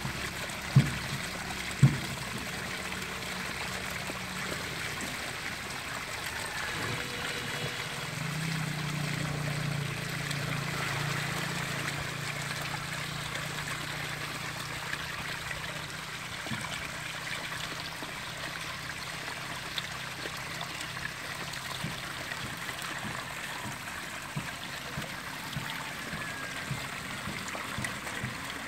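Water trickling and running steadily down a mud channel into a woven basket fish trap. Two sharp knocks sound near the start.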